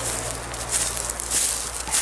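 Rustling and crunching in dry leaf litter, with a few louder swishes.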